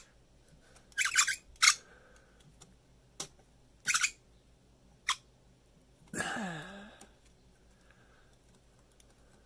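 Fly-tying thread being whip-finished at the hook eye and snipped: about six short, sharp snips and rasps over the first five seconds, the loudest about a second in.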